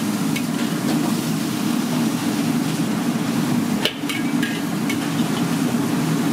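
Steady low rush from a commercial wok range, with a few sharp clinks of a steel ladle striking the carbon-steel wok as vegetables are stirred.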